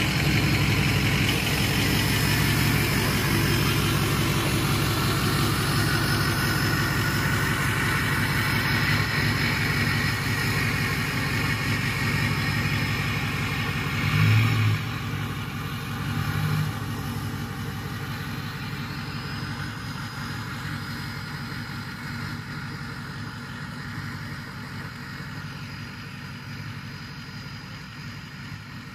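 Ford 6.0 Powerstroke V8 turbodiesel running steadily at idle, with two short rises in engine sound about halfway through. The sound then fades gradually as the truck drives away.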